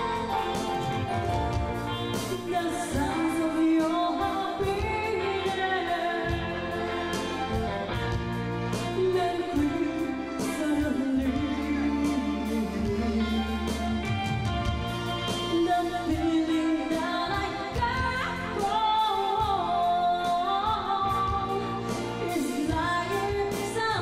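A woman singing a slow ballad live into a microphone, with steady instrumental backing.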